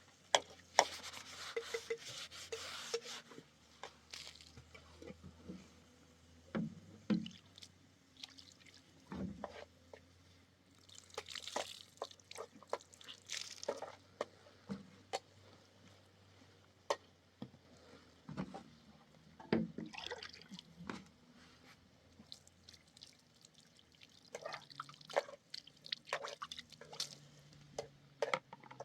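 Intermittent dripping and splashing of water, with scattered light clicks and knocks and a few louder splashy bursts.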